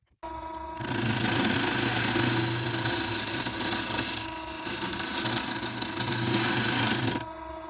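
Wood lathe switched on, its motor humming steadily, then a turning gouge cutting into a spinning wild olive blank with a loud, even shearing noise from about a second in. The cut stops shortly before the end, leaving only the lathe's hum.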